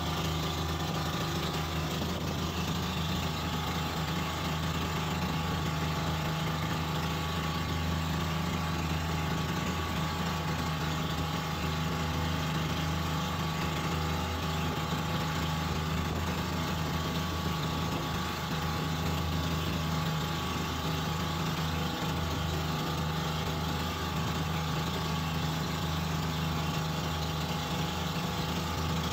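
Engine of a bangka outrigger boat running steadily under way, a constant low drone with water rushing past the hull and outrigger floats.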